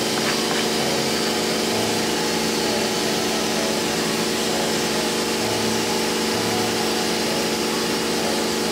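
Steady drone of a running electric fan motor, with a constant hum and an even airy hiss.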